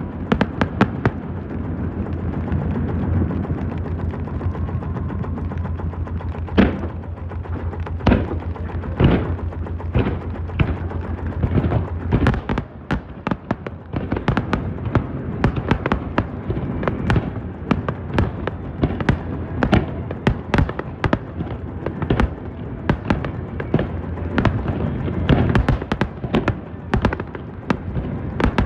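A fireworks display: aerial shells going off in a run of sharp bangs, which crowd into a rapid barrage of bangs and crackles from about halfway through. A steady low hum lies under the first half and then stops.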